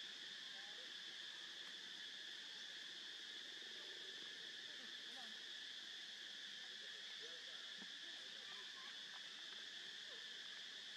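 Steady high-pitched insect chorus droning without a break, with a few faint short chirps in the background.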